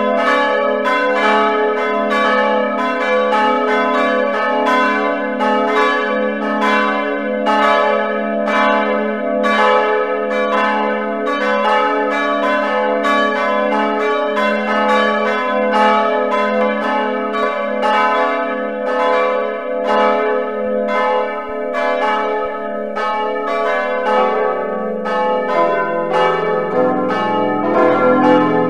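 Sampled church bells in a bell-ringing simulator, several bells swinging together in a full peal. Strikes overlap continuously, a few a second, each leaving a long ringing tail. In the last few seconds the mix changes as the bell combination is switched and deeper bells join.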